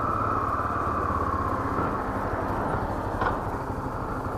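Honda XR 250 Tornado's single-cylinder four-stroke engine running steadily under way, with wind noise, its note sinking slightly in the first couple of seconds. A brief tick about three seconds in.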